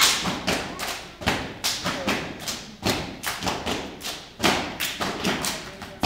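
Children's step team stepping: a syncopated rhythm of stomping feet and slaps and claps on the body, several sharp strikes a second with irregular accents.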